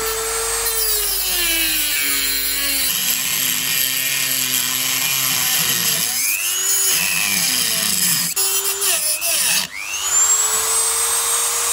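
Dremel 3000 rotary tool running at high speed, its whine sagging and wavering in pitch as the grinding bit is pressed into the steel seat frame. Near the end it stops briefly and spins back up with a rising whine.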